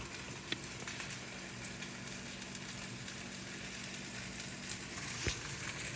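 Turkey burger patties frying in oil in a pan on a gas stove, giving a steady sizzle, with a couple of light knocks about half a second and five seconds in.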